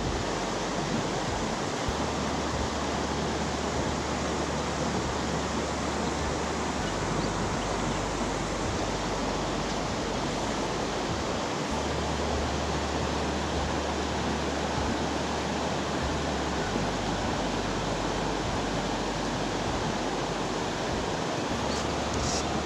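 Small creek rushing steadily over a low cascade of fallen logs, an even, unbroken water noise.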